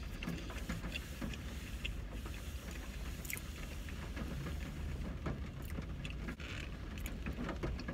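Quiet chewing of a bite of burger, soft scattered mouth clicks, over a steady low rumble inside a car.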